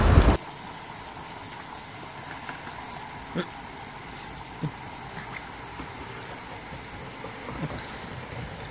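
Water spraying from a garden hose onto grass: a steady soft hiss with a few faint ticks. A loud rush of wind and surf at the very start cuts off abruptly.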